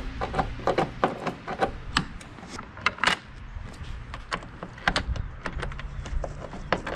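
Hand screwdriver with a T30 Torx bit turning a roof-rail mounting bolt: a run of irregular small clicks and metal taps.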